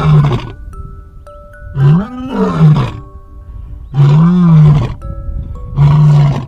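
Lion roaring four times in loud, rough calls whose low pitch swells and falls. Light background music notes sound between the roars.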